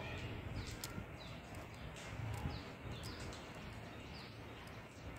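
Faint short strokes of a blade scraping the solder pads of a small LED on a piece of metal-core LED board, cleaning it for soldering, over a low hum.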